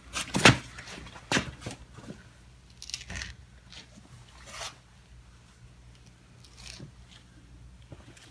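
Scattered light clicks and scraping knocks: the loudest about half a second in, a few more at intervals of a second or so, then quieter.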